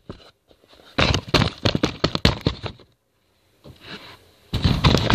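Rustling and scraping of a drawstring bag against the phone microphone inside it, as the bag is handled and carried. It comes in two spells, about a second in for nearly two seconds and again near the end, with a short silent gap between.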